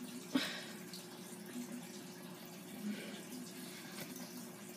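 Steady background hiss with a faint low hum, and a brief knock about half a second in as a hard plastic toy figure is handled on a plastic playset.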